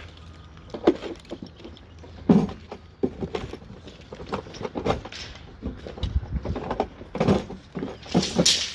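Irregular knocks and clatter of hand work on a timber bearer. Two sharp knocks come about one and two and a half seconds in, then quicker, lighter knocks, over a low steady hum that fades in the first few seconds.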